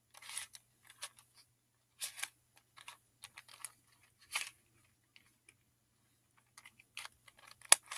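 Barrel cube, a cylinder-shaped 3x3 plastic twisty puzzle, turned by hand to scramble it: irregular clicks and short scraping rattles of its layers, with a brief pause midway and a sharp click near the end.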